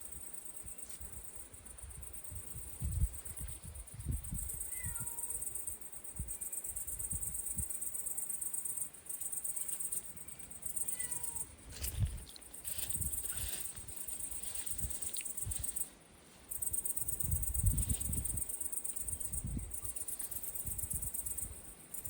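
A domestic cat meowing faintly a couple of times, over a steady high chirring of insects.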